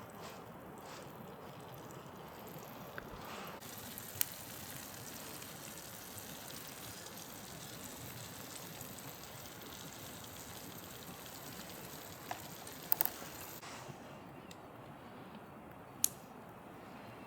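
Wood campfire burning with a steady hiss, broken by a few sharp pops about four, thirteen and sixteen seconds in.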